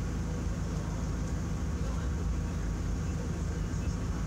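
A steady low engine hum running at an even pitch.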